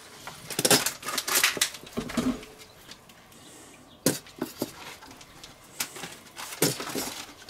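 Plastic squeeze bottle of mayonnaise being squeezed over a steel bowl: irregular sputters and clicks as sauce and air spurt out of the nozzle, with the bottle being handled in between.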